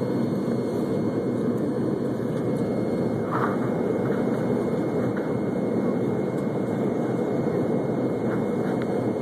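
Steady cabin noise of an airplane in its climb after takeoff: the even rumble of engines and airflow, heard from inside the cabin.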